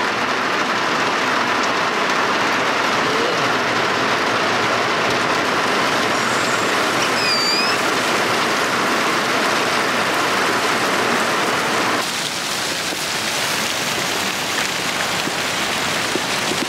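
Heavy downpour: a steady, loud rush of rain, heard from inside a car. About three quarters of the way through it drops slightly in level as the sound changes.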